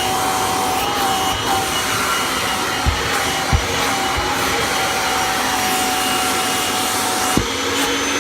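1993 Kirby G4 upright vacuum cleaner running steadily, a constant rush of air with a steady whine. A few dull knocks come about three seconds in and again near the end.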